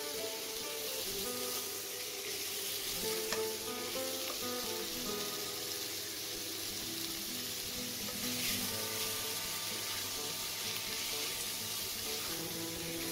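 Chopped lamb sizzling in hot oil with fried onions in a nonstick pot, a steady frying hiss, with a spatula stirring through the meat.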